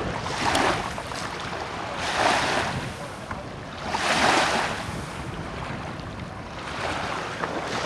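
Small waves lapping and washing at a lakeshore, a soft rushing swell about every two seconds, with a low rumble of wind on the microphone.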